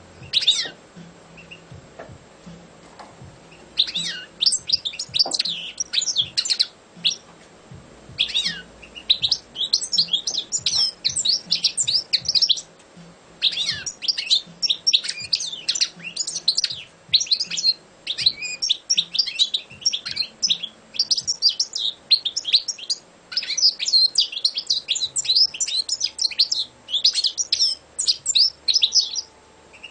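Caged European goldfinch singing. A single short call comes first, then from about four seconds in long runs of fast, high twittering song, broken by short pauses between phrases.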